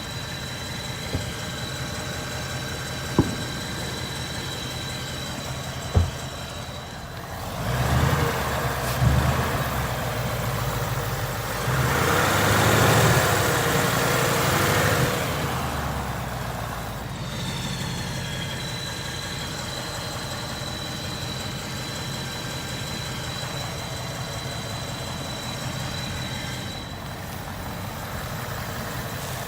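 Ford Mustang GT PP1's 5.0-litre V8 idling, with a thin high whine over the idle and two sharp clicks early on. It is blipped up in revs twice, around 8 and 13 seconds, then settles back to idle. This is the engine noise being checked after a test drive.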